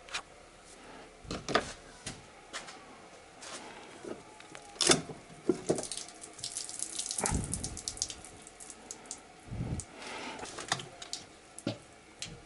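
Cylinder head of a VAZ 21126 engine being gripped, rocked and shifted on the block: scattered metallic clicks and scrapes with rustling, and a couple of dull knocks about seven and ten seconds in.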